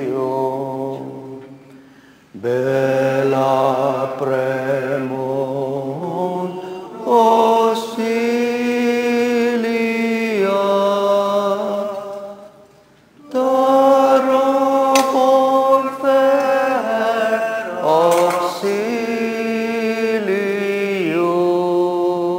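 A slow chant-style hymn sung with long held notes. The singing breaks off briefly about two seconds in and again about halfway through.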